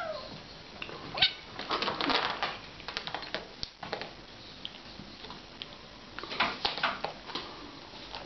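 Kittens play-fighting: irregular clusters of scuffling, clicking claws and paw taps on a carpeted pad. There is a busy stretch from about two to four seconds in and another around six and a half seconds.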